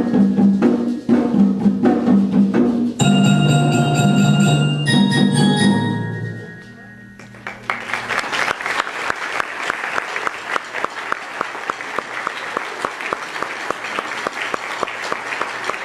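Student percussion ensemble playing the closing bars of a Cuban-style piece on marimba and other mallet instruments, ending on a ringing final chord that dies away about six seconds in. Audience applause follows.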